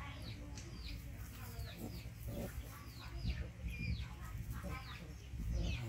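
Birds chirping: short high calls, each falling in pitch, repeated several times a second, over a low rumble.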